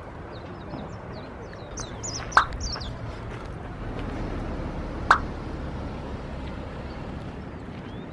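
Small birds chirping in quick, high notes through the first three seconds, over a low steady rumble. Two sharp clicks about two and a half seconds apart are the loudest sounds.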